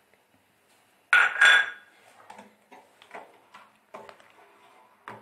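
A metal spoon clangs against a metal cooking pot once, loud and ringing, about a second in. It then knocks and scrapes more softly against the pot, about two or three times a second, as it stirs milk and rice.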